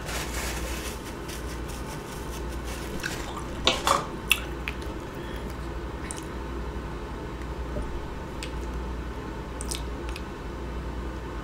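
A person chewing and smacking wet, saucy food close to the microphone, with a cluster of sharp clicks about four seconds in and a few fainter ones later.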